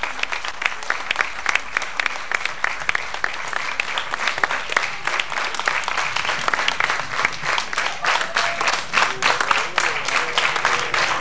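Audience applauding: many hands clapping in a dense, steady patter, with faint voices in it near the end.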